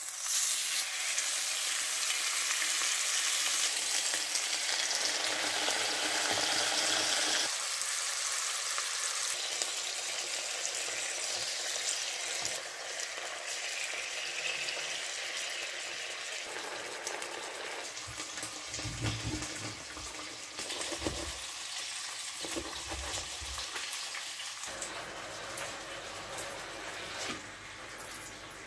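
Stuffed squid frying in a hot pan: a loud, dense sizzle that starts as they go in, easing slightly after several seconds, with a few low knocks partway through.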